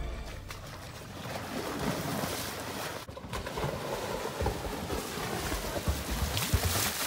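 Lake water splashing and churning just below a wooden dock, with irregular low thumps. Music fades out in the first moment.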